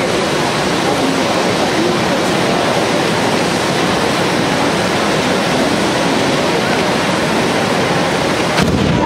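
Several hand-held tezutsu fireworks, bamboo tubes packed with gunpowder, spouting fountains of sparks together: a loud, steady rushing hiss. Near the end a few sharp cracks and pops break in.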